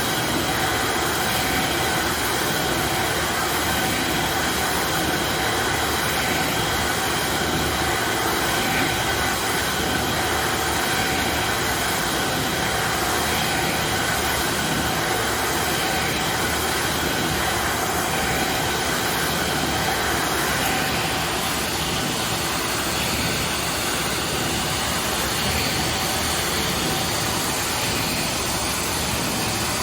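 Murata DB600R deburring machine running with its dry dust collector: a steady rush of noise with several constant whining tones, easing slightly about two-thirds of the way through.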